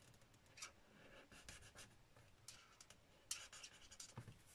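Faint scratching of a Stampin' Blends alcohol marker's bullet tip on cardstock: short, repeated colouring strokes filling in a small stamped flower.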